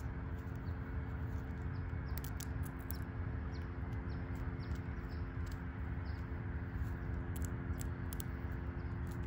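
Fox squirrel cracking and chewing sunflower seeds: quick, sharp little clicks in small clusters, over a steady low rumble with a faint hum.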